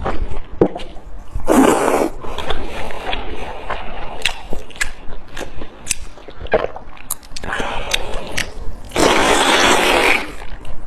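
Close-miked eating sounds: a person chewing with wet mouth clicks, plus two longer noisy stretches, one about two seconds in and a longer one near the end.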